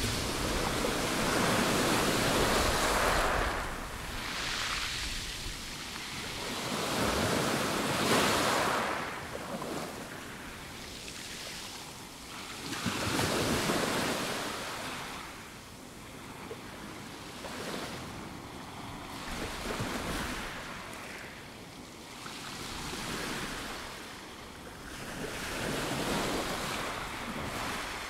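Small waves breaking and washing up a pebble beach, the rush of surf swelling and fading again every five or six seconds. The loudest surges come in the first few seconds and about eight seconds in.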